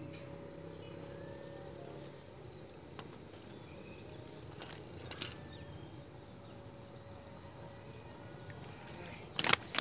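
Steady outdoor background with faint chirps and a few soft clicks. Near the end comes a quick cluster of loud, sharp knocks and rustling as freshly caught tilapia are handled in the bankside grass.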